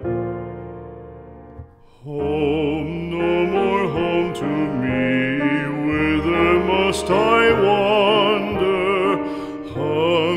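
Music: a piano chord dies away, then from about two seconds in a voice sings with strong vibrato over piano accompaniment, in an operatic style.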